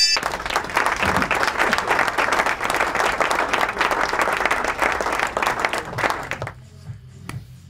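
Applause: dense clapping that cuts off about six and a half seconds in, leaving a quieter low beat.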